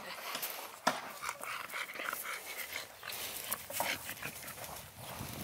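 American bully dog panting with its mouth open, a quick run of short breaths, with one sharp click about a second in.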